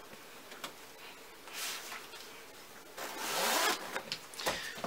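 Zipper on the travel cot's fabric being pulled: a short zip, then a louder, longer one that rises in pitch, followed by a few light clicks and knocks near the end.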